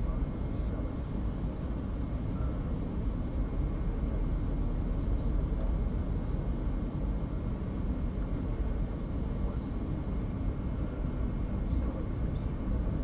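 Steady cabin noise inside a Boeing 737-800 on final approach: engine and airflow rumble, heaviest in the low end, with a faint steady whine above it.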